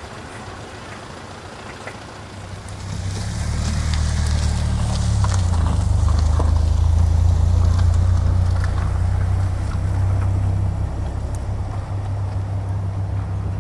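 Diesel-electric locomotive hauling a train, its engine a deep, steady hum that swells about three seconds in, holds loudest through the middle and eases a little near the end.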